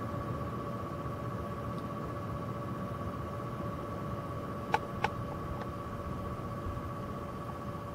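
Corsair H100 liquid cooler and PC fans running: a steady whir with a high, even whine, which the owner puts down to the H100 rather than the graphics card's fans at 40% auto speed. Two sharp clicks a little past halfway.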